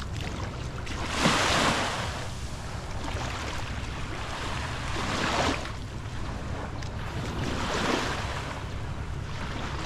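Small waves lapping and washing onto a sandy shore, swelling three times about every three seconds.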